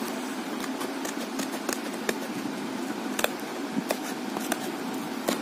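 Scissors cutting along the taped edge of a cardboard shipping box: scattered short snips and clicks of the blades over a steady hiss.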